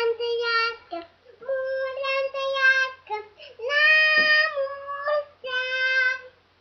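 A young girl singing unaccompanied in a high voice, holding long notes in several short phrases with brief pauses for breath between them.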